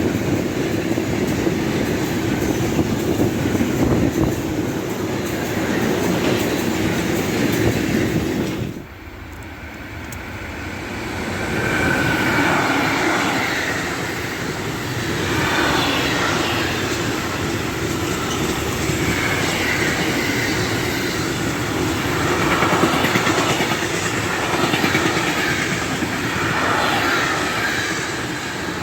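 Train passing, its wheels clattering over the rails. The sound drops off abruptly about nine seconds in, then another passing train builds up, with high wavering tones over the rumble.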